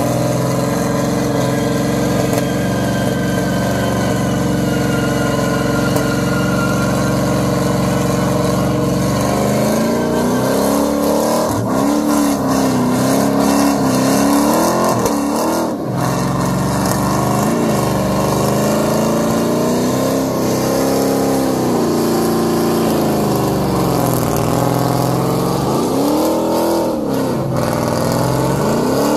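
Truck engine at high revs during a burnout, held steady for about nine seconds, then revved up and down again and again.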